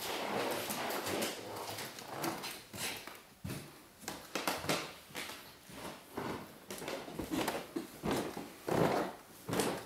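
Footsteps on a wooden floor: uneven knocks and scuffs, a few a second.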